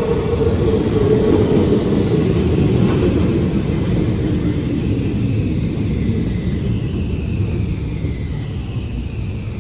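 Helsinki Metro train pulling into an underground station: a loud, steady rumble of wheels on the rails, with a whine that drops in pitch as the train slows, the noise easing off toward the end.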